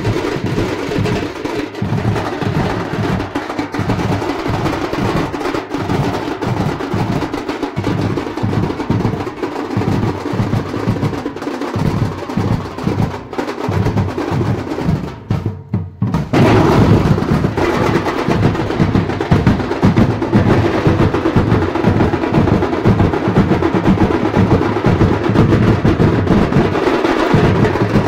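Background music with a steady drum beat; it cuts out briefly a little past halfway and comes back louder.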